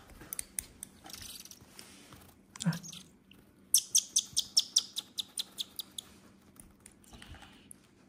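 A six-day-old hand-reared nestling begging as it is spoon-fed: a quick run of over a dozen high, sharp chirps lasting about two seconds, starting a little under four seconds in.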